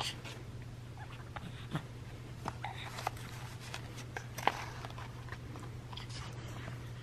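Light handling sounds, a scattering of soft clicks and rustles with the sharpest tick about four and a half seconds in, over a steady low hum.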